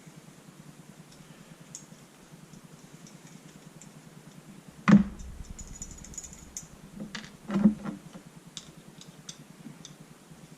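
Small metal clicks and taps of tools and screws being worked while the hopper mount screws of a paintball marker are taken out, with one sharp knock about halfway in and a short clatter of parts about three seconds later.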